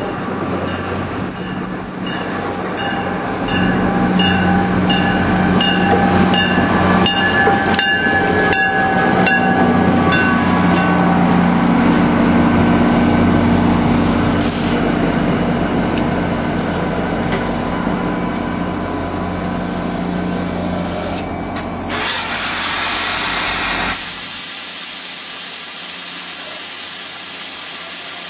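A diesel-hauled commuter train, a GP40PH-2 locomotive with Comet coaches, rolls slowly into a station with a steady engine drone and rumbling railcars, and a regular ticking through the first ten seconds or so. Near the end a loud, even hiss takes over and the low rumble fades.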